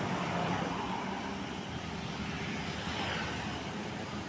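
Road traffic noise: the engine and tyre rush of a passing vehicle, slowly fading, with a brief swell about three seconds in.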